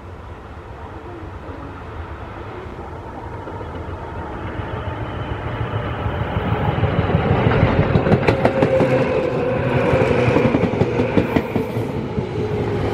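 Tobu 10000-series ten-car electric train approaching and passing close by, growing steadily louder over about ten seconds. A steady motor hum runs under it, and from about seven seconds in the wheels click rhythmically over the rail joints.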